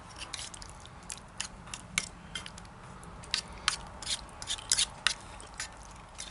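Plastic spoons scraping and clicking against metal mess-kit pans as tortellini in tomato sauce is stirred and scooped, in irregular sharp clicks and short scrapes.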